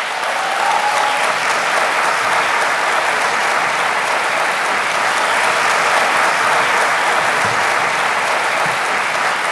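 A large audience applauding steadily, a dense, even clapping that swells in over the first second and holds.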